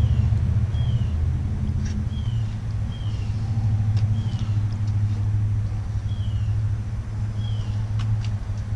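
A steady low engine-like hum, with short falling chirps from a bird repeating about once a second over it.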